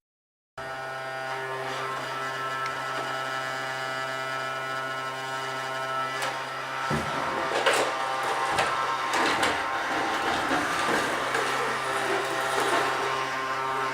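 Vacuum cleaner motor running with a steady hum. A few knocks come about halfway through, and it gets noisier from there on.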